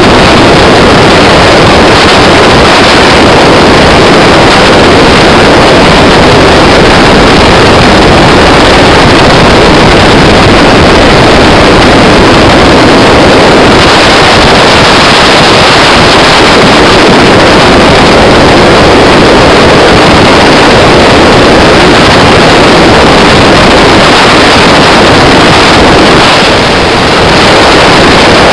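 Edge Marine Velocity LS jet boat under way on a river, heard from on board: a loud, steady wash of engine, jet and water noise mixed with wind on the microphone, dipping briefly near the end.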